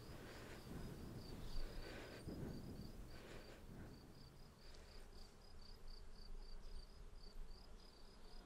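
Crickets chirping steadily, a quick, regular chirp about four times a second. A few faint soft swishes come in the first half.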